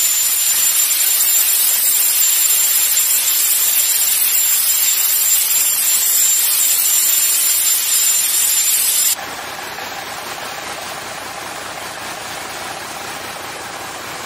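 Steady rushing hiss of spray and water as a landing craft runs through the sea. About nine seconds in it drops abruptly to a quieter, duller steady rushing noise.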